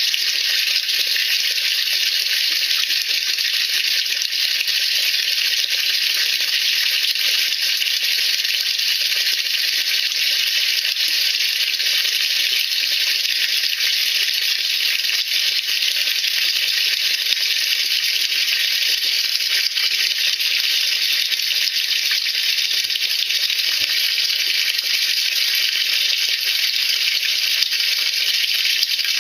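Steady fizzing, crackling hiss of sodium percarbonate foaming in the water of a washing machine drum as it releases oxygen bubbles.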